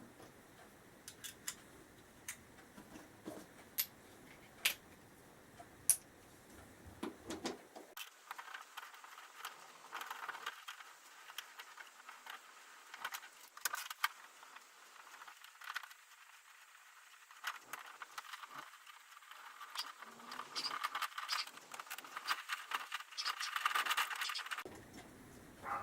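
Faint metallic clicks and rattling of an Allen key working in the bolts of a motorcycle's top-rack mounting plate as they are undone. The clinking grows busier about a third of the way in.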